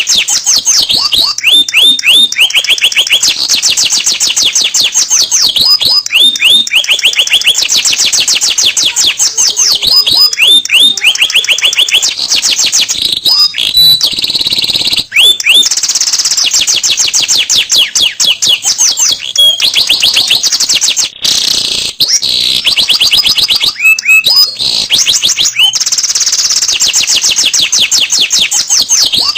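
Domestic canary singing a long song of fast trills. Each phrase is a rapid run of one high note repeated many times a second before it switches to another, with some downward-sliding notes among them.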